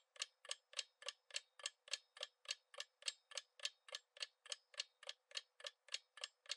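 Clock-tick sound effect of a quiz countdown timer, ticking faintly and evenly at about three and a half ticks a second while the answer time runs out.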